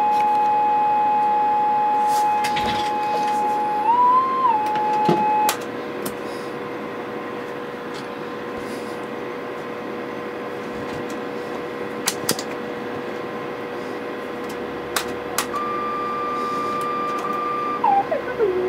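Steady audio test tone from an analog tone generator, stepping briefly up in pitch about four seconds in and stopping after about five and a half seconds. A faint steady hum and a few clicks follow. Then a higher tone starts and glides down in pitch near the end.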